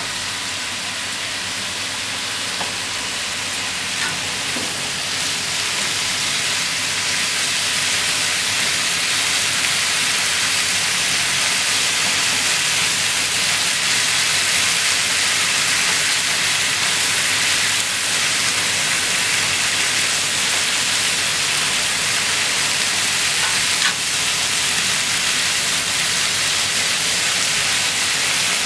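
Pork, cabbage and bean sprouts sizzling steadily as they are stir-fried in a frying pan. The hiss grows louder over the first several seconds, with a couple of light clicks from the stirring.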